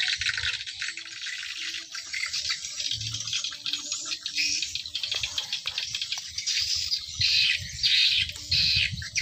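Outdoor bird chorus: birds chirping and calling over a dense, pulsing high-pitched din, with low wind rumble on the microphone growing stronger in the second half.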